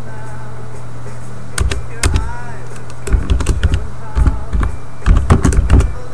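Typing on a computer keyboard: scattered key clicks from about a second and a half in, coming in quicker runs over the last few seconds. A steady low electrical hum runs underneath.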